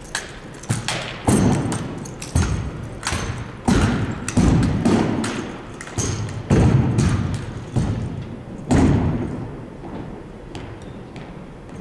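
A drill team's rifles being slapped and grounded, their butts striking a hardwood gym floor. It is a dozen or so sharp, unevenly spaced thuds, each echoing in the large hall, and they thin out after about nine seconds.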